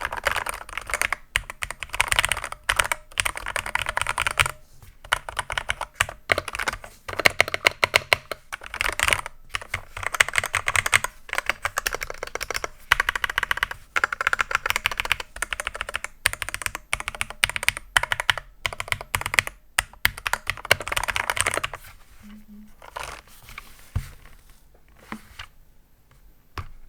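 Typing on an AKKO 3061S HE 60% keyboard with Hall effect magnetic switches: quick runs of key clicks in bursts, thinning to a few faint clicks near the end.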